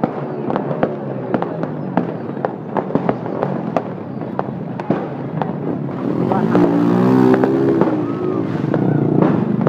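Fireworks banging in a quick, irregular string of sharp reports, a few each second. From about six to eight seconds in, a louder engine-like sound rises and falls over them, fitting motorbikes passing close.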